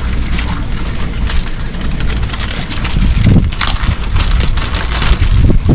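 Wind buffeting the microphone in low gusts, heavier from about halfway through, over crackling and rustling of packaging being handled.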